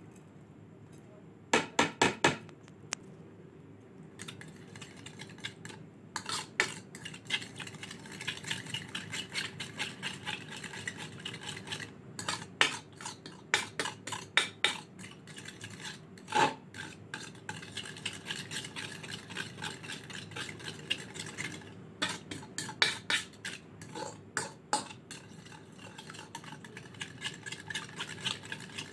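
Metal spoon stirring ground spices into a thick white mixture in a bowl, scraping and clinking against the bowl in quick, irregular strokes. A short run of loud clicks about two seconds in.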